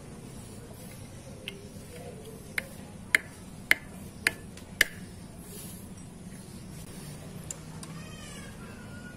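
A run of six sharp clicks about half a second apart as small motorcycle clutch parts are handled, then a cat meowing near the end.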